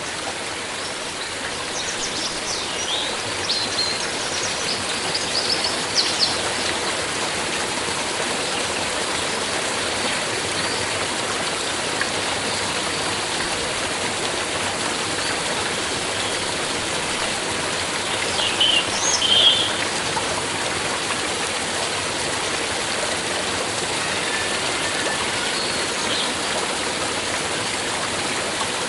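A stream of water running steadily. A few short, high chirps sound over it near the start, about two-thirds of the way through, and near the end.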